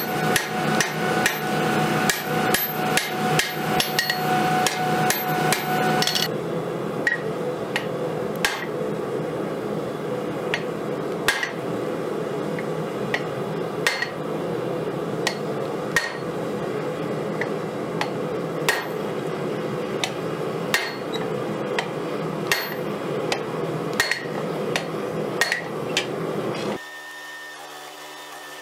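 Hammer striking a red-hot khopesh blade on the anvil. First comes a fast run of blows, about three a second, with the anvil ringing. From about six seconds in the blows are slower, roughly one a second, over a steady noise. Near the end the hammering stops, leaving a quieter steady hum.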